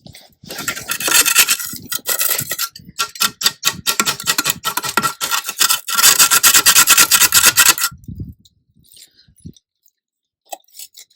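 Hard, rasping scraping against stone in quick repeated strokes, as when a stone is rubbed or filed down to fit. It runs for about seven seconds, with a short break near the start, then stops.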